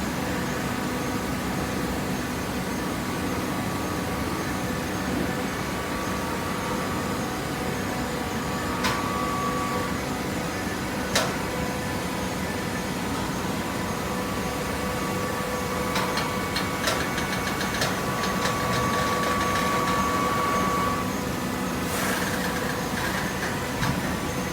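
Hydraulic baler running: a steady machine hum with a higher whine that comes in for a few seconds twice, once near the middle and again for longer later on, and a few sharp knocks.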